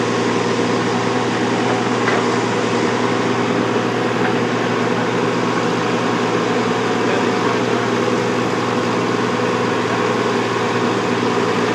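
Engine of a logging machine running at a steady, unchanging drone, with a constant hum.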